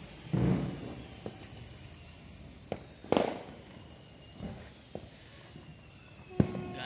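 Firecrackers going off: scattered sharp pops and bangs, the loudest about three seconds in.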